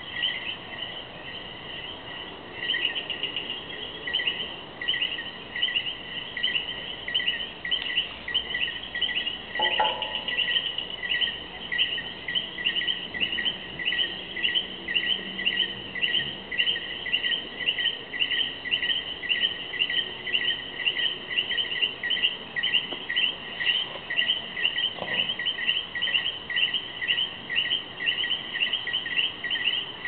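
Night chorus of coquí frogs calling, a fast steady train of short two-part chirps at about two to three a second.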